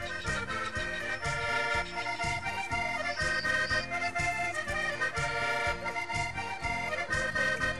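Portuguese folk tune played on a concertina (button accordion), a melody in held reedy notes over a regular rhythmic bass.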